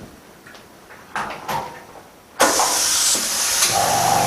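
OCA bubble remover machine starting its pressure cycle: two light clicks, then about halfway through a loud steady hiss and machine hum switch on abruptly, with a steady whine joining near the end.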